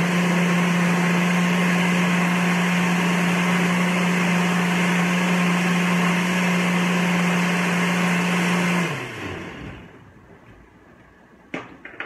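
Countertop blender running steadily at full speed, blitzing a smooth nutritional-yeast cheese sauce, then winding down about nine seconds in. A couple of short knocks near the end as the jar is lifted off the base.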